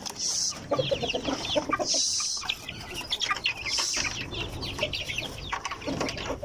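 A flock of chickens calling: hens clucking under many rapid, high, falling peeps from young chicks. Three short hissy noises come in between.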